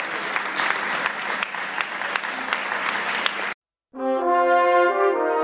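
A group of people applauding, with distinct individual claps, cut off abruptly about three and a half seconds in. After a brief silence, music with long held chords starts.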